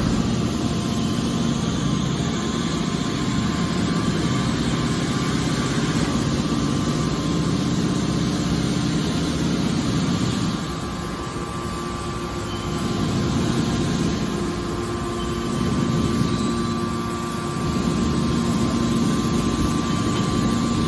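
Hydraulic scrap metal baler running: a steady mechanical hum from its motor and hydraulic pump, dipping slightly in loudness about halfway through and swelling again.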